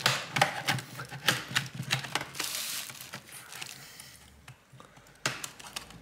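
Plastic snap clips of an MSI GF65 Thin laptop's bottom cover clicking and cracking loose as a pry tool works along the front edge: a quick run of sharp clicks, a brief scrape, then a louder snap about five seconds in as a clip lets go.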